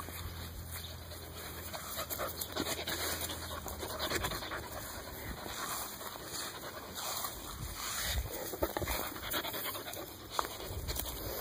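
Airedale terrier puppy panting in soft, breathy puffs, with one sharp click near the end.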